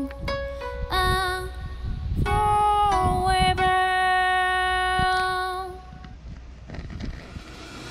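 Background music: a gentle melody of long held notes, which drops much quieter about six seconds in.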